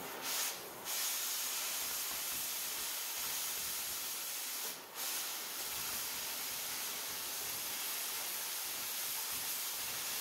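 Oxyacetylene cutting torch hissing steadily as it cuts through 3/8-inch steel plate, the hiss dropping out briefly twice, about half a second in and again near the middle.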